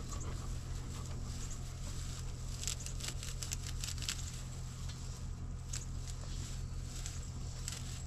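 Rustling of leafy herb plants with a flurry of crisp snips and crackles a few seconds in and a few more near the end, over a steady low hum.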